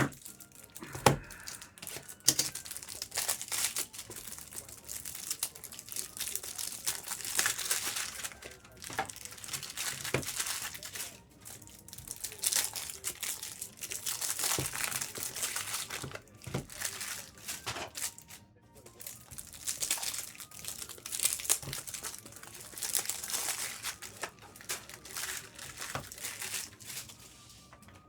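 Foil trading-card booster pack wrappers crinkling and tearing as packs are handled and opened, in repeated bursts with a few sharp clicks.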